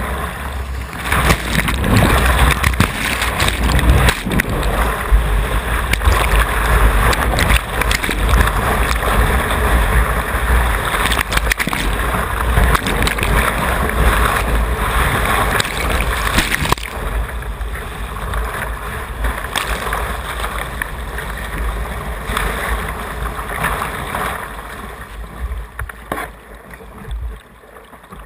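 Whitewater rushing and churning around a kayak, heard from a camera on the kayak's bow, with water splashing over the deck and a deep rumble buffeting the microphone. The rush is loud at first and eases off steadily through the last third.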